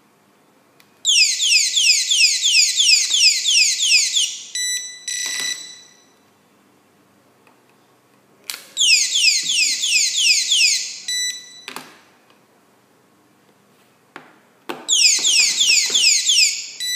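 Anti-theft alarm of a cell phone security display stand sounding three times. Each burst lasts two to three and a half seconds of rapid, repeated falling electronic sweeps, about three a second, and ends with short beeps and clicks.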